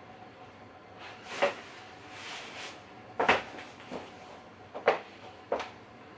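Wooden boards knocking and clattering against a wooden baffle plate as they are handled and laid on it: about five sharp knocks, with a short scrape about two seconds in.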